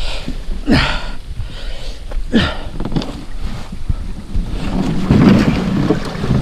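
A canoe being dragged by its bow rope over dirt and leaf litter: the hull scrapes and rustles, with two short downward-sliding squeals early on, and a louder, steadier scraping rush in the second half as it slides along the bank.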